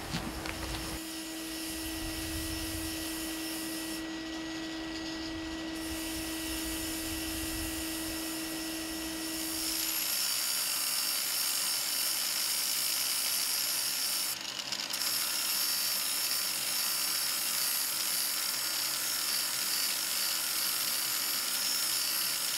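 Electric grinder running with a steady hum, then from about ten seconds in a harsher, hissing grind as the glaze is ground off the surface of a glazed ceramic cup.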